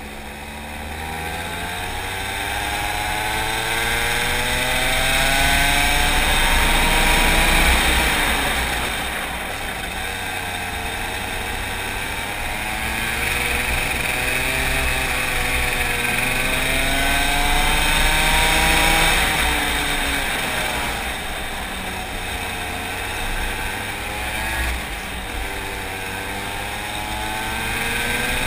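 Racing go-kart engine heard from onboard at full throttle, its pitch climbing steadily three times as the kart accelerates and dropping away each time it comes off the throttle. The engine is loudest on the first two climbs.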